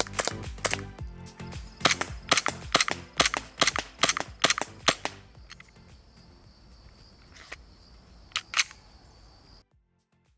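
Gas blowback airsoft pistol firing: about eight sharp shots at a steady pace, roughly two a second, then after a pause one more shot and a quick pair. The sound cuts off suddenly near the end.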